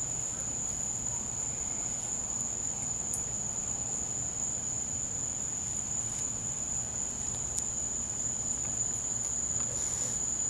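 A cricket's steady, high-pitched trill, unbroken, with a few faint clicks over it.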